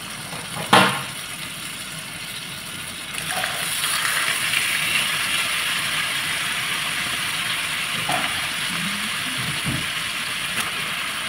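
Marinated chicken pieces sizzling in a hot buttered grill pan. The sizzle swells about three seconds in, as a second piece is laid in, and holds steady. There is one sharp clack just under a second in.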